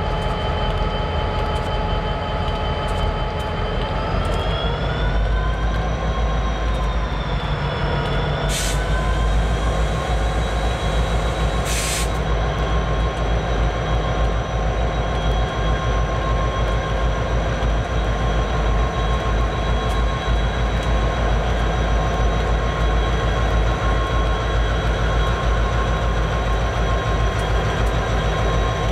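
Diesel-electric freight locomotive running with a steady whine; its engine works harder about four seconds in, the low rumble thickens and the whine rises as it moves past. Two short bursts of hiss come briefly, about nine and twelve seconds in.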